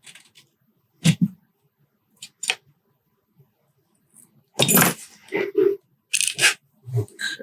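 Small metal clicks and clinks from a Kwikset rim lock cylinder and lockpicking tools being handled while the lock is taken apart: a couple of sharp clicks in the first few seconds, then a busier run of rattling clinks.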